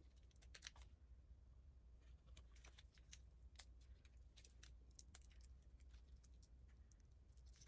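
Faint, scattered small clicks and crinkles from fingers handling small stick-on feet and peeling off their paper backing, over a low steady hum.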